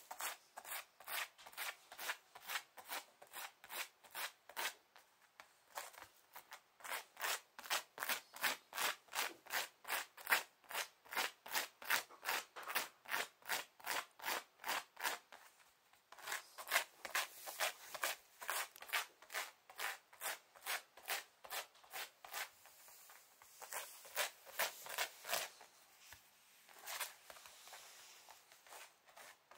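Shiba Inu digging at a tatami mat, its front-paw claws scraping the woven rush surface in rapid, regular strokes of about three a second. The scraping pauses briefly twice.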